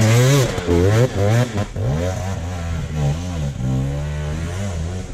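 Enduro dirt bike engine revving hard in quick repeated surges, pitch rising and falling as it works up a steep forest climb.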